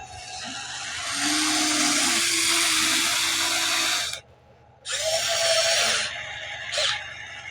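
Electric motors of a Huina 1594 RC excavator whirring as it works. There is a long run of about four seconds, a brief stop, a second shorter run, and a short blip near the end.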